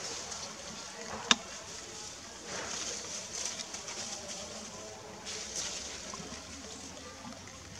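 Quiet outdoor background hiss with one sharp click about a second in, and a few soft rustles.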